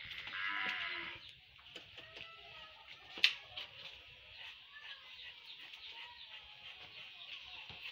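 A loud animal call about a second long at the start, then a single sharp click about three seconds in, over a faint steady high hiss.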